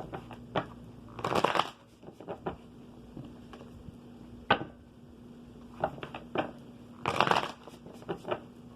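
A deck of tarot cards being shuffled and handled. There are two short riffling bursts, about a second in and again near the end, with scattered taps and clicks of cards between them.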